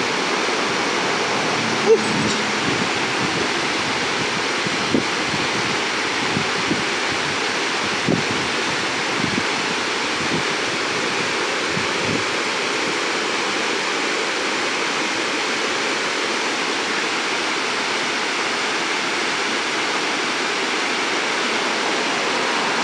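Creek water rushing steadily over rocky rapids and a small fall. One brief sharp click about two seconds in.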